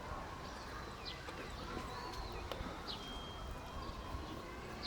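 A bird gives short, high chirps that slide downward, repeated about every one and a half seconds, with a brief thin whistle about three seconds in, over steady outdoor background noise.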